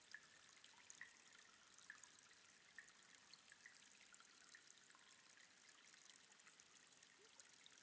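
Near silence: a faint outdoor background hiss with small, scattered high ticks about once a second.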